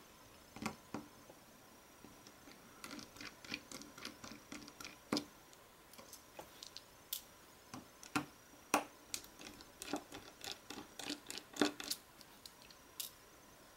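Small Phillips precision screwdriver backing the tiny screws out of a Samsung Galaxy Nexus's rear housing, with fingers handling the phone: faint, irregular clicks and scrapes of the bit and plastic.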